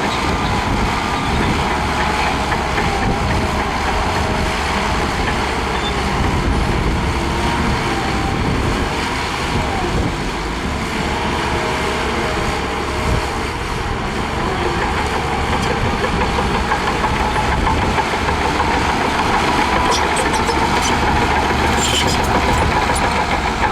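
Heavy diesel earthmoving machinery running steadily under load, with a few sharp metallic clicks near the end.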